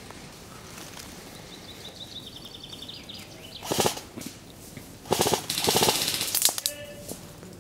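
Airsoft guns firing two full-auto bursts of rapid clicks: a short one a little past the middle, then a longer one of about a second and a half near the end. A bird chirps faintly before the first burst.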